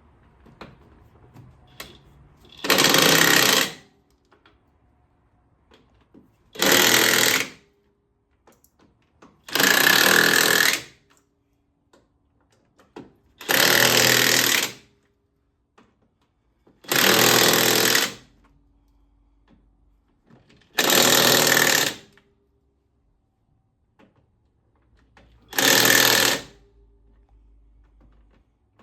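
DeWalt DCF899 20-volt cordless half-inch impact wrench hammering in seven rattling bursts of about a second each, a few seconds apart, as it drives the lug nuts onto a wheel with a 13/16 impact socket.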